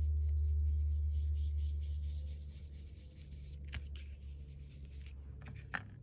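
A low steady hum that fades about two seconds in, under faint rubbing of a small brush dabbing ink onto paper, with two light clicks later on.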